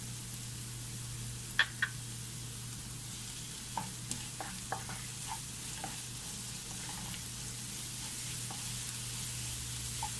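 Sliced onions, green chillies and ginger-garlic-green-chilli paste sizzling steadily in a non-stick frying pan as they are stirred. A utensil knocks sharply on the pan twice a little under two seconds in, then taps lightly several times between about four and six seconds in.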